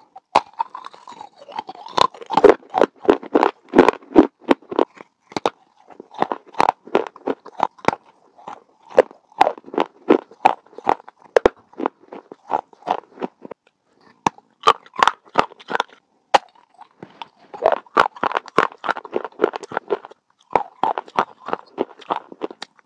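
Close-miked crunching of baked, unglazed terracotta clay bitten and chewed in the mouth. It comes in bursts of rapid sharp cracks separated by short pauses.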